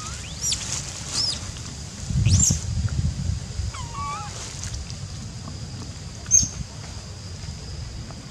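Macaques calling: a few short, high-pitched squeals that rise and fall, a lower wavering call, and one sharp chirp near the end, over wind rumbling on the microphone about two seconds in.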